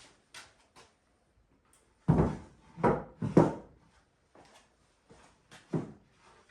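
Wooden knocks and thuds, like boards or a piece of wooden furniture being set down or handled. The three strongest come in quick succession about two to three and a half seconds in, another follows near the end, and fainter taps and clicks fall between them.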